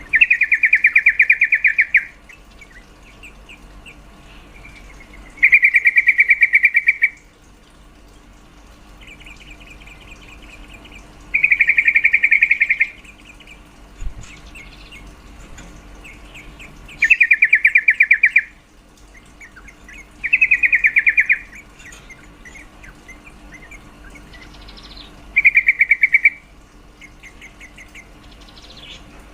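Female yellow-vented bulbul (trucuk) giving her calling chatter: six loud bursts of fast, rattling notes, each lasting a second or two and a few seconds apart, with softer chirps between. It is the call used as a lure to rouse male bulbuls into singing.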